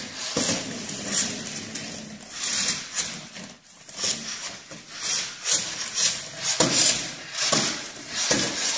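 Toy remote-control car whirring in short rasping bursts as it darts back and forth on a hardwood floor around a small dog.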